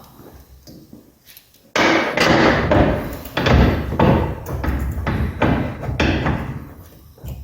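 Irregular knocks, thumps and clanks starting suddenly about two seconds in and running on, as the folding boat T-top's frame is handled and its stainless steel pin is refitted on the port side to lock it upright.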